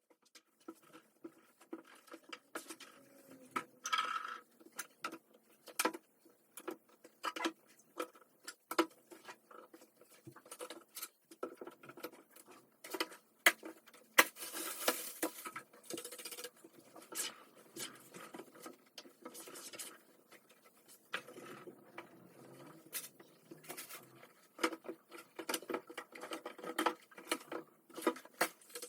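Things being handled by hand: irregular taps, clicks and light knocks with some rustling, the busiest stretch about halfway through.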